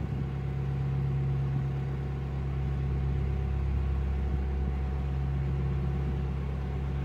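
Narrowboat's inboard diesel engine running steadily under way, a constant low hum with a deep, even note.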